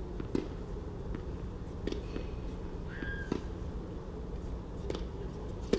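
Tennis rally: a string of sharp racket-on-ball hits, about every second and a half, with a short high squeak in the middle.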